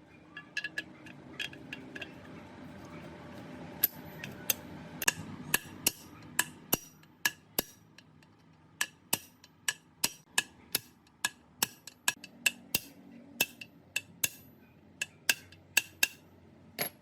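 Sharp metallic clinks and taps of metal striking metal on gearbox parts, dozens of them at uneven spacing, sometimes two or three a second, each with a short ring.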